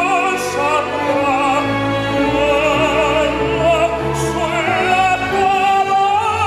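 Operatic tenor singing sustained notes with a wide vibrato over an instrumental accompaniment.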